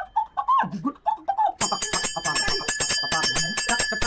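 Short high-pitched voice-like calls that rise and fall, then from about one and a half seconds in a fast, continuous metallic ringing rattle.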